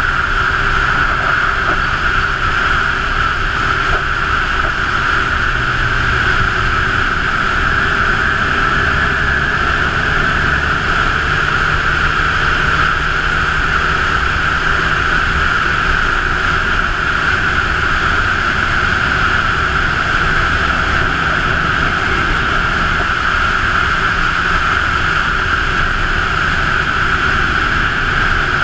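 Steady wind rush over the camera microphone on a Honda CB1000R riding at road speed. The bike's inline-four engine sits faint underneath, its note shifting slightly a few times.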